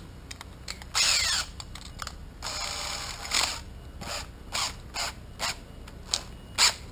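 Cordless drill's keyless chuck ratcheting as a hole saw arbor is tightened into it, in a string of short bursts with brief spins of the drill.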